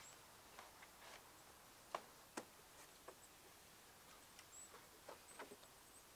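Quiet forest with a few small knocks and clicks of wooden poles being handled, the two sharpest about two seconds in, and faint, short, high bird chirps now and then.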